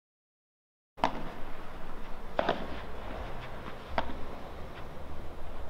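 Sharp pops of a padel ball struck by rackets and rebounding off the court walls, irregular hits roughly a second apart over a low background hum, beginning after about a second of silence.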